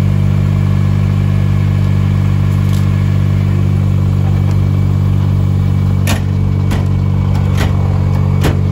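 A vehicle engine idling steadily, with four sharp knocks from about six seconds in.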